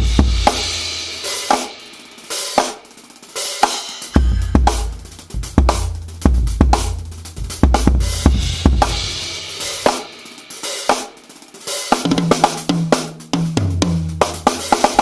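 Drum kit played in a groove with bass drum, snare, hi-hat and Meinl Byzance cymbals, picked up by a Yamaha EAD10 drum microphone. The bass drum drops out twice for a couple of seconds while the snare and cymbals carry on.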